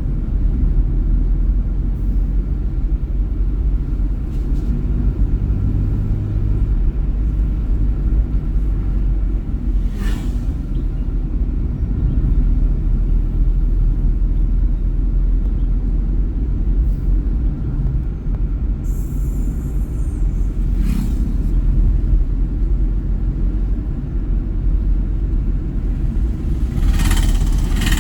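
Steady low rumble of a vehicle driving along a road, with a few brief knocks or rattles about ten seconds in, again about twenty seconds in, and near the end.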